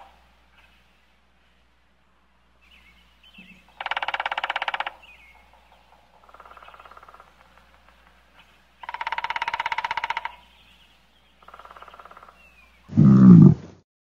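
A series of short animal calls, each about a second long and rapidly pulsed, repeated four times, then a much louder, deeper grunting call near the end.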